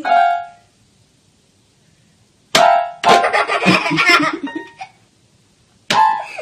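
Small electronic toy keyboard sounding as a pet paws at its keys: single electronic notes start sharply at the start, about two and a half seconds in and near the end, with a longer jumble of notes in between.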